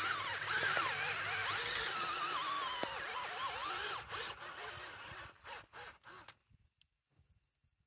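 Cordless drill boring a planting hole through landscape fabric into garden soil, its whine rising and falling as the bit churns the dirt. It eases off about four seconds in and stops after about six.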